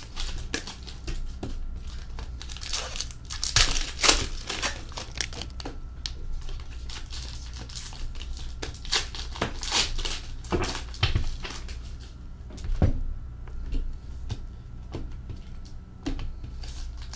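Hockey card pack wrappers crinkling and trading cards rustling as they are handled and flipped through, in irregular bursts.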